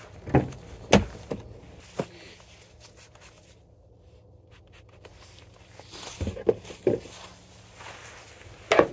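Handling noise: a few sharp knocks in the first two seconds, a quiet stretch, then clusters of rustling and knocks near the end, as hunting gear is handled while setting up.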